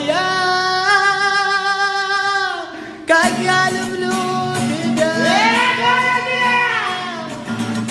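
A song: a singing voice holds long notes with vibrato over plucked guitar, breaks off about three seconds in, then sings another phrase that rises and falls.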